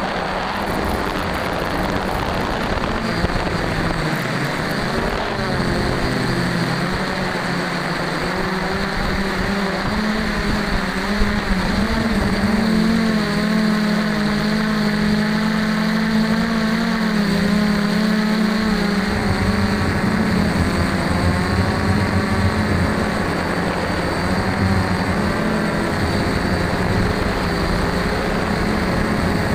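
DJI F550 hexacopter's electric motors and propellers running in flight, picked up by the camera mounted on the frame: a loud, steady drone whose pitch wavers up and down as the throttle changes. About two-thirds of the way in a deeper tone joins the hum.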